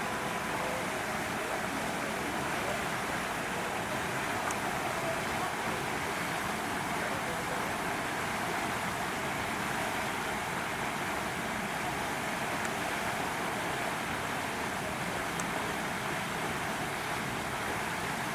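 Steady outdoor background noise: an even hiss with no distinct events, holding one level throughout.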